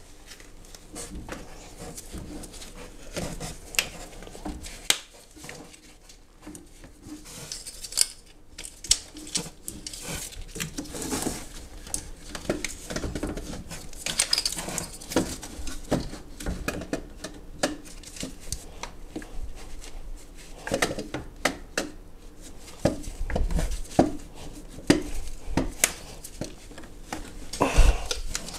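Irregular metal clinks, knocks and scrapes as a car alternator and its mounting bolts are handled and worked into place on a VW 1.9 TDI engine, with a couple of heavier thumps near the end.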